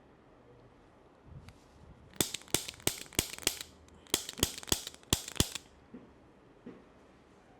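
Rapid sharp cracks from a chiropractic ear-cracking manipulation, which is used to stimulate the vagus nerve and release spasm in the small muscles joining skull and spine. There are two runs of about five quick cracks each, roughly four a second, with a short pause between them.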